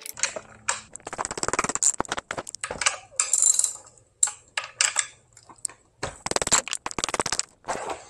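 Ratchet wrench clicking in several quick runs as the rear axle nut of an electric scooter is loosened.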